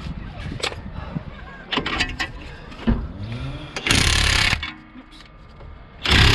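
An impact wrench hammering in a burst of under a second about four seconds in, with a second burst starting near the end, after a few sharp metal knocks. It is working on the track rod end's ball-joint nut while the joint's stud keeps turning with it.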